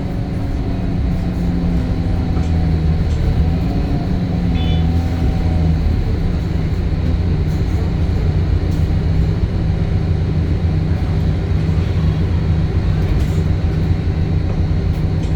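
Temsa Avenue LF 12 city bus with a DAF Euro 5 diesel engine and ZF gearbox, running with a steady low drone. A few higher wavering tones ride over it for the first six seconds or so, then fade out.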